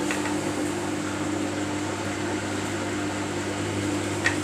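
Samsung washing machine filling with water: a steady hum from the water inlet valve with water running in, and one short click near the end.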